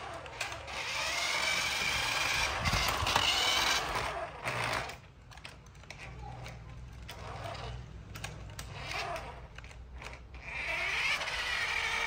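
Small electric drive motor and plastic gearbox of a remote-control toy cement mixer truck whining as it drives across a tiled floor. The whine rises and falls with the toy's speed, drops away for several seconds in the middle, and comes back strongly near the end.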